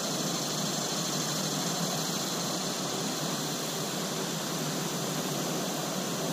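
Steady rush of a shallow river running over rocky rapids.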